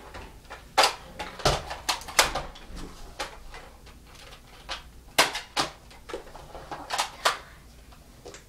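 Nerf blasters being primed and fired: a dozen or so sharp plastic clacks and snaps at irregular moments, several in quick pairs.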